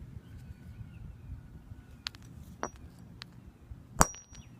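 Hammer striking a rock: a few light taps, then one hard strike near the end with a short, high metallic ring.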